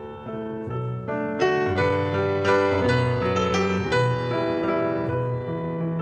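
Instrumental background music led by piano, with a melody of separate notes over held lower notes.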